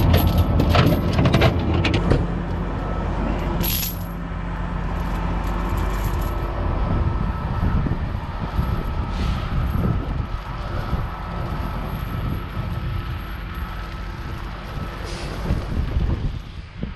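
Heavy truck's diesel engine idling steadily. Metallic clinks of chain being handled come in the first two seconds, and a short sharp hiss of air comes just under four seconds in, with a fainter one near the end.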